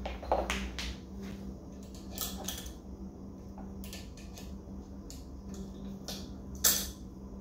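Flat-blade screwdriver prying at the metal retaining ring inside a Showa motorcycle fork's lower leg: irregular small metal clicks and scrapes, with one louder click near the end.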